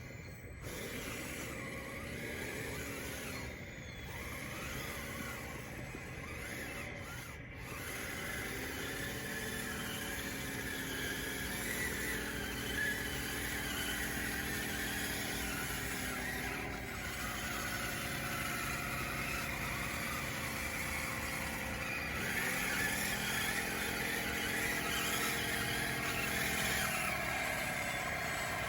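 DXR2 RC bulldozer's electric drive motors whining, rising and falling in pitch as the tracks start, change speed and stop, over a scratchy clatter of tracks and dirt.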